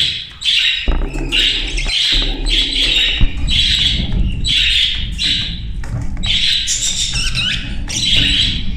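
A room full of budgerigars and other small cage birds calling in quick, overlapping bursts, about two a second, with a low rumble underneath.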